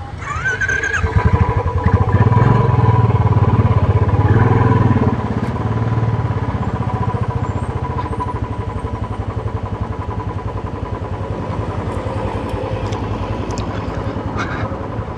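Motorcycle engine pulling away and running up a rough track, louder for the first few seconds and then settling to a steady pulse.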